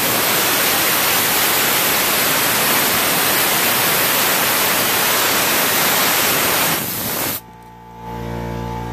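Harbor Freight 20 lb pressurized abrasive blaster with a soda attachment spraying from its nozzle: a loud, steady hiss of compressed air and media that cuts off abruptly about seven seconds in.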